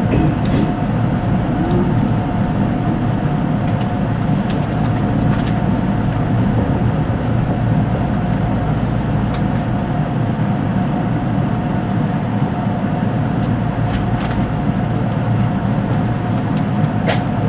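Cabin noise of a 485-series electric train moving along a station platform: a steady low rumble with a faint constant hum and a few light clicks.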